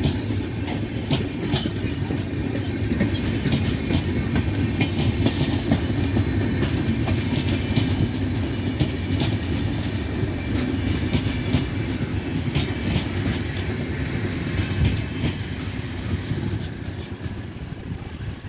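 Passenger train coaches rolling past: a steady rumble of wheels on the rails with scattered clicks from the rail joints. The sound falls away near the end as the last coaches go by.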